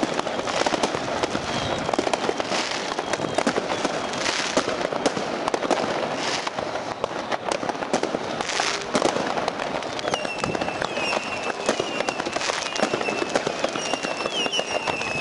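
New Year's fireworks and firecrackers going off all around in a dense, unbroken crackle of bangs, with louder bursts every couple of seconds. From about two-thirds in, thin high whistles glide slightly downward over the bangs.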